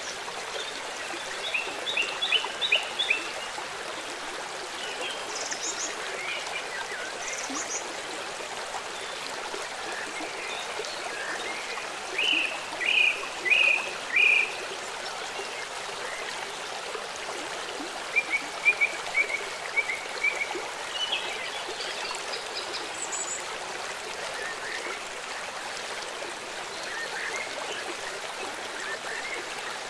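Small birds chirping in short clusters of quick notes, four louder chirps about twelve seconds in, over a steady rushing hiss.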